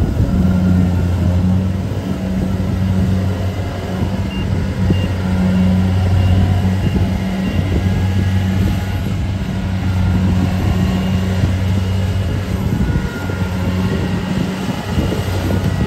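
Kubota DC70 rice combine harvester's diesel engine running steadily under load as the machine cuts and threshes rice, a constant low hum.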